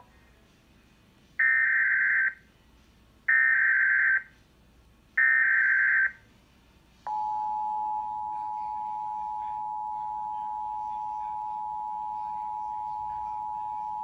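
Emergency Alert System activation through a TV speaker: three short, loud data bursts about a second apart (the SAME digital header), then, about seven seconds in, the steady two-tone EAS attention signal.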